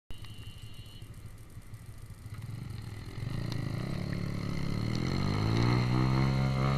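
Motorcycle engine accelerating, its pitch and loudness rising steadily through the second half, over road noise.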